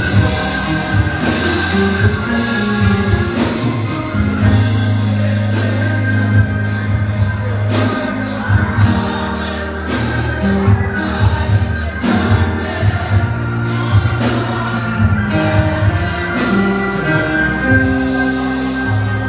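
Gospel music: a choir singing over held bass notes and steady drum hits.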